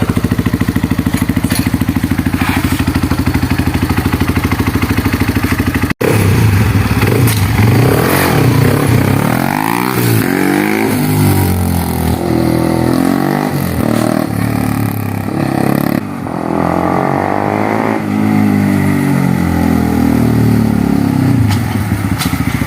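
Honda CRF150L's single-cylinder four-stroke engine idling steadily. About six seconds in, after a sudden break, it is ridden on a short test run, its revs climbing and dropping again and again as it accelerates and shifts. This is a test ride after fitting an aftermarket power cable.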